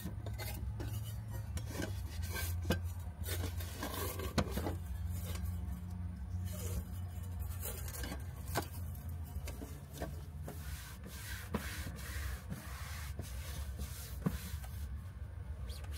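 Hands packing a stainless steel bowl and lid into a mesh bag: rustling and rubbing of the mesh with light metal clicks and knocks. Later comes the rub of a paper towel wiping a table top, over a steady low hum.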